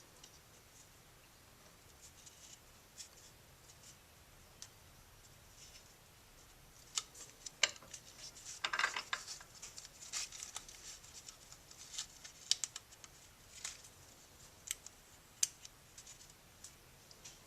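Faint handling noise of fingers working and stretching a stiff rubber gearbox seal: mostly quiet at first, then scattered light clicks and short scratchy rubs from about seven seconds in.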